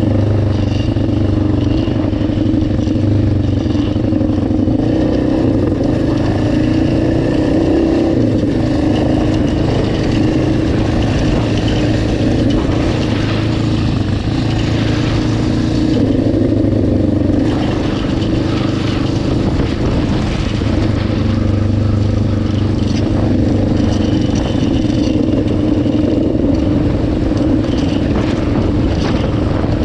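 ATV engine running at a fairly steady speed while riding, with scattered knocks and rattles from the machine over rough ground.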